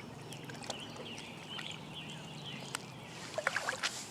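Water splashing in a quick cluster about three seconds in as a big bass is held in the water for release, over faint bird chirps.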